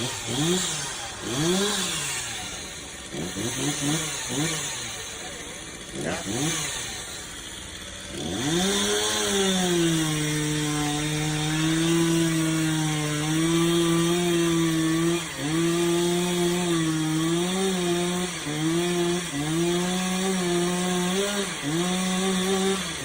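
Chainsaw engine revved up and down in quick throttle blips, then held at a steady high speed with a few brief dips.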